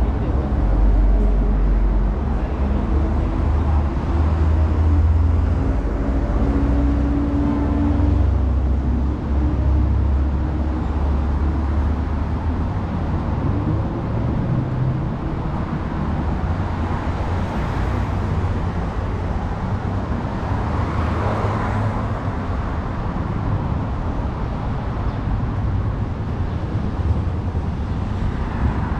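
City street traffic: motor vehicles running by with a steady low rumble. An engine hum holds one pitch from a few seconds in until about nine seconds, and a vehicle passes about twenty-one seconds in.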